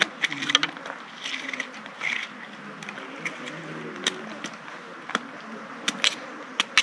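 Irregular sharp clicks and short scrapes, with faint voices talking in the background.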